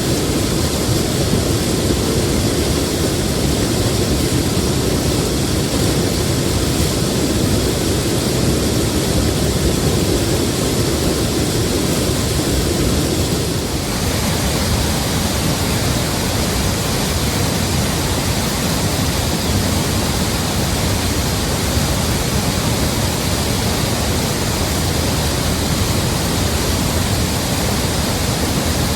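Swollen creek after heavy rain, water rushing and cascading in a loud, steady roar. About halfway through the sound changes abruptly to a brighter, hissier rush, as from a different stretch of the stream.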